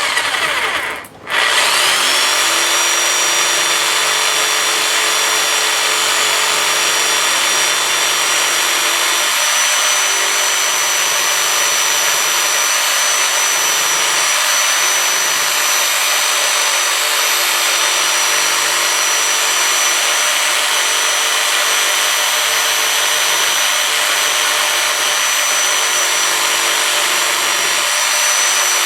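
Electric jigsaw cutting into a plastic key fob casing: a brief burst and stop, then running steadily with a high whine.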